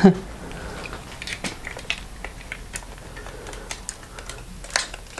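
A knock right at the start, then scattered light clicks and taps at an irregular pace, a few a second, over a low steady background hum.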